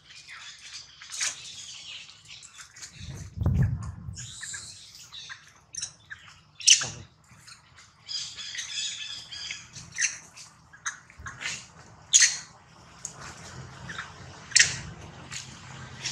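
Long-tailed macaques giving short, sharp, high-pitched squawking calls over and over, alarm at a snake on the ground. The loudest calls come about seven, twelve and fourteen and a half seconds in, and there is a low thump about three and a half seconds in.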